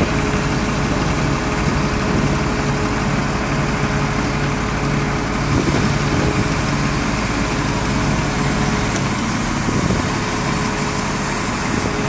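Heavy diesel engine running steadily, with a low hum. The deepest rumble drops away about nine seconds in.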